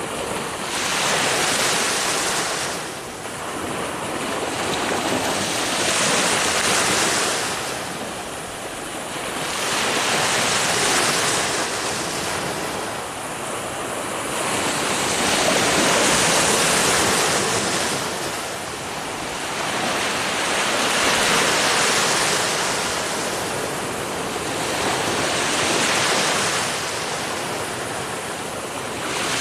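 Ocean waves breaking and washing on a shore, the surf swelling and falling back in surges about every four to five seconds.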